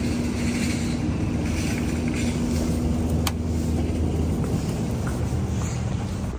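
Steady hum of a supermarket chiller aisle, from the open refrigerated display cases and ventilation, with one sharp click about three seconds in.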